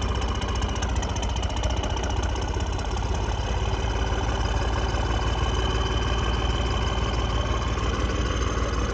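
Heavy diesel engine running steadily at an even speed.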